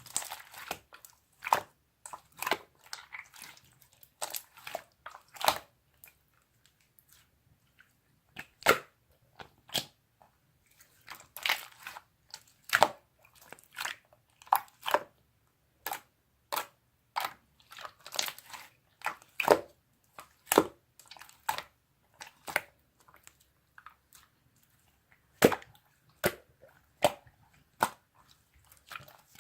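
Mixed slime being squished and pressed by hand, giving irregular sticky clicks and pops with short pauses between them.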